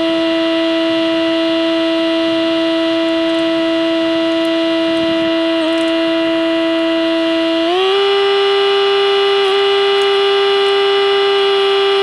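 Kubota BX25D compact tractor-backhoe, its three-cylinder diesel and hydraulics running, giving a loud steady whine that steps up in pitch about eight seconds in and holds there.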